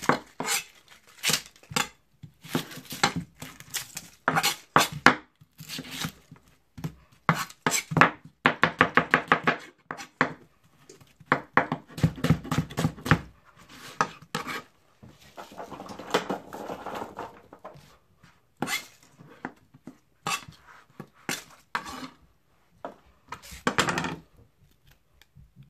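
Chef's knife slicing an onion on a plastic cutting board: the blade knocks against the board in irregular runs of quick strokes, with short pauses between runs.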